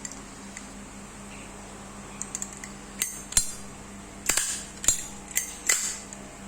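Brass Zippo lighter lids flipped open and snapped shut: a run of sharp metallic clicks and clinks, a few small ticks about two seconds in, then louder clicks about half a second apart. It is the lid 'clink' listened to as a sign of an original Zippo.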